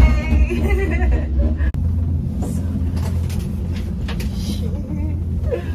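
A moving vehicle's steady low rumble, with indistinct voices over it at first and again faintly near the end. The sound cuts out sharply for an instant after about two seconds, then the rumble carries on.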